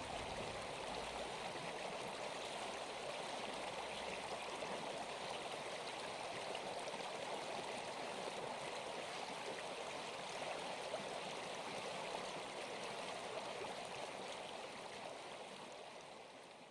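Steady sound of running water, like a flowing stream, fading out over the last few seconds.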